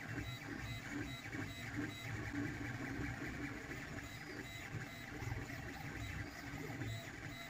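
LulzBot FDM 3D printer running mid-print: the stepper motors whirring and changing tone as the print head and bed move, over the steady hum of its cooling fans.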